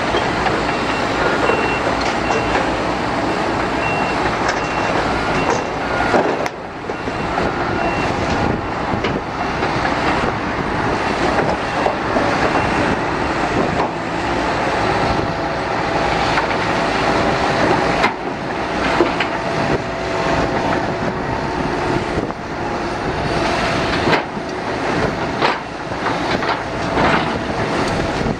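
Heavy diesel construction machinery running, with a reversing alarm beeping in a steady pattern over roughly the first eight seconds. Short knocks are scattered throughout.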